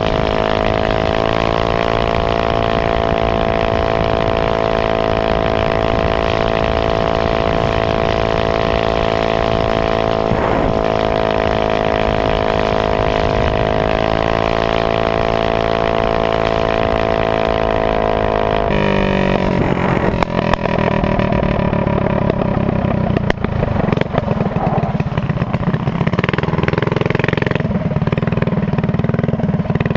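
Minibike's Honda GX160 single-cylinder four-stroke engine held at steady high revs at speed. About two-thirds of the way through, the note drops suddenly to a lower, rougher running as the throttle comes off and the bike slows.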